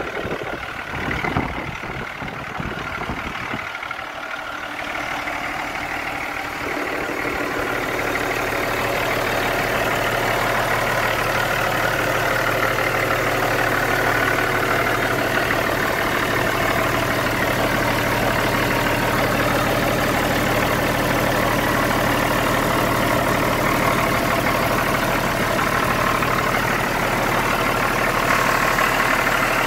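Cummins ISX inline-six diesel of a heavy truck idling steadily. It grows louder about seven seconds in and then holds an even level.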